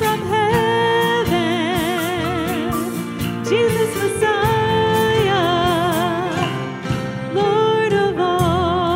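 A woman sings a worship song, holding long notes with a wide vibrato, over a live band of acoustic guitar, electric bass, drums and piano.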